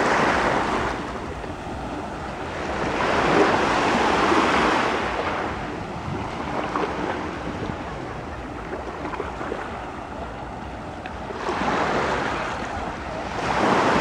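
Small waves breaking and washing up onto a sandy beach, the surf swelling and fading every few seconds, with wind rumbling on the microphone.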